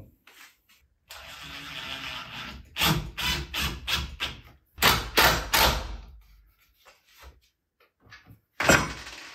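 Makita cordless impact driver driving screws through a wooden strip into chipboard: the motor runs steadily for a moment, then hammers in a string of short bursts as the screw seats, with one more short burst near the end.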